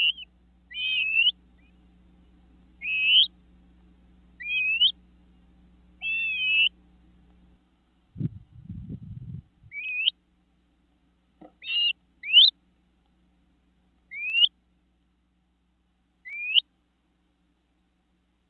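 Great crested flycatchers giving a series of short, rising whistled 'wheep' calls, about ten in all, spaced one to two seconds apart. A brief low rustling noise comes about eight seconds in.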